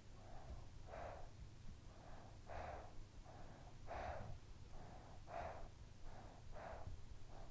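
A sleeping child breathing, soft and regular: about one breath every second and a half, each a quieter puff of air followed by a stronger one.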